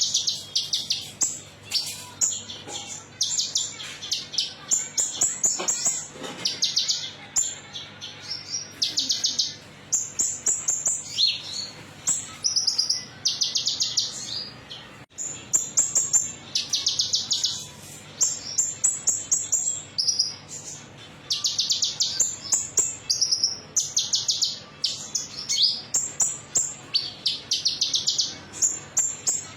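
Van Hasselt's sunbird (kolibri ninja, 'konin') singing: short bursts of very rapid, high trills and chirps, one after another with brief gaps. A lure song of the kind played to get other sunbirds singing.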